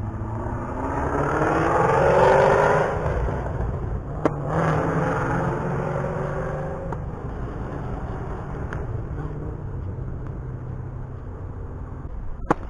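A motor vehicle accelerating past, its engine pitch climbing and loudest about two seconds in, then climbing again after a shift about four seconds in before fading away.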